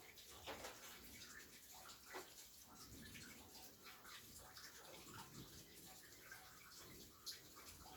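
Rain falling, heard faintly: a dense, irregular scatter of drops and small ticks, with a few louder single drops.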